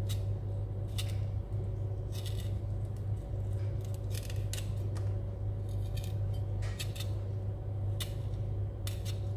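Large kitchen knife paring the skin off a lime: scattered short clicks and scrapes as the blade cuts through the rind, over a steady low hum.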